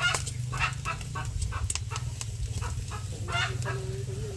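Chickens clucking in short, repeated calls, with one longer drawn-out call about three seconds in, over a steady low rumble.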